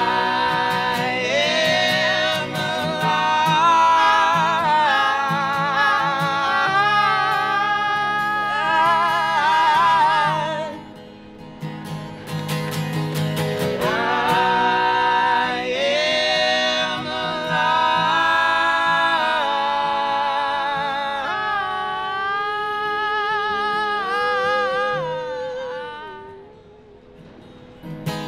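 A folk trio singing long held notes in close harmony, a woman's voice with men's voices, over acoustic guitar and accordion. The singing comes in two long phrases, with a short gap about halfway through, and it fades near the end.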